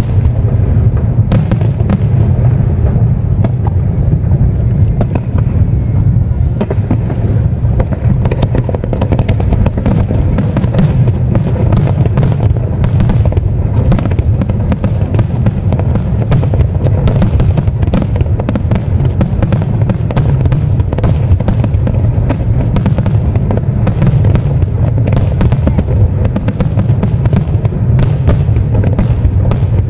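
Aerial fireworks display with shells bursting in rapid succession: a continuous low rumble of bangs with many sharp cracks on top.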